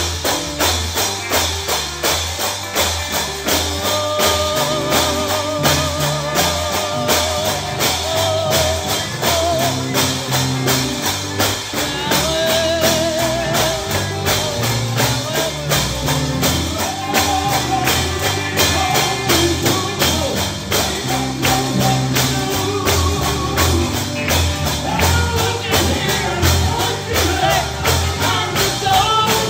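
Gospel music played live: a steady, quick tambourine beat over the band, with a voice singing with vibrato from about four seconds in.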